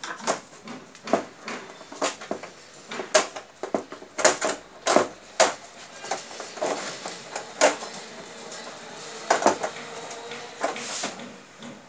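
Irregular clicks, taps and knocks of hands handling the plastic and metal frame and sheets of an opened LED TV backlight panel during disassembly, busiest about three to five seconds in and again near the end.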